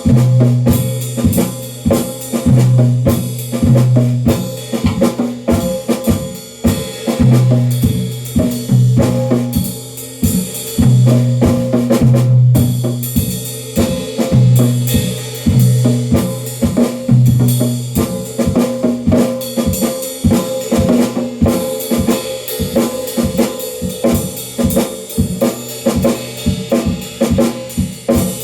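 Drum kit played continuously in a dense pattern of fast hits, with a low tone sounding in blocks of about a second beneath the strokes.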